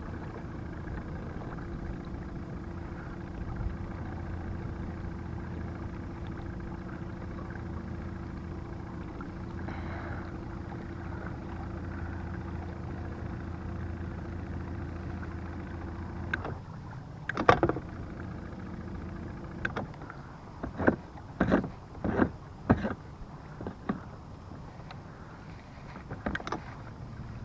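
A boat motor running with a steady hum, which cuts off about two-thirds of the way through, followed by a string of sharp knocks and clicks on the boat.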